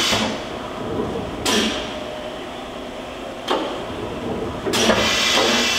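Fadal 3016L vertical machining center's 21-tool umbrella automatic tool changer cycling through a tool change. Three sharp clunks, about a second and a half, three and a half, and nearly five seconds in, each followed by a burst of hiss, with a steadier hiss after the last one.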